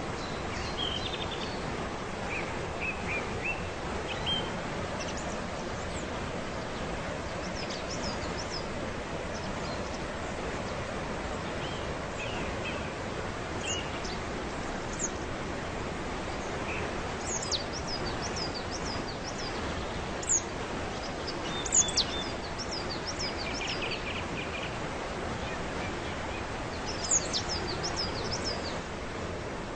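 Waterfall rushing steadily, with small birds chirping over it in scattered bursts of quick, high, falling notes, loudest about two thirds of the way in and near the end.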